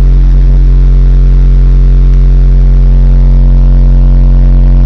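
A car audio system's four 12-inch NVX VCW subwoofers playing a steady, extremely loud deep bass tone at one pitch: an SPL competition burp, the run metered at 150.6 dB.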